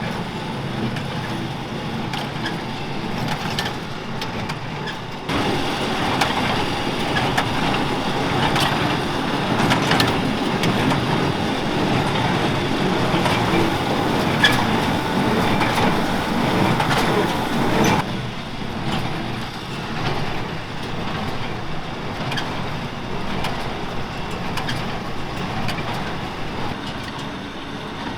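Kubota tractor running with an International small square baler working behind it: a steady mechanical noise that jumps louder about five seconds in and drops back about eighteen seconds in.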